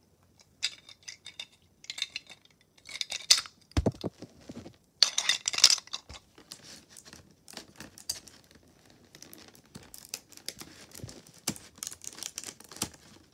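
Thin clear plastic packaging and small boxes being handled: irregular clicks, crinkles and light rattles, with one dull knock about four seconds in.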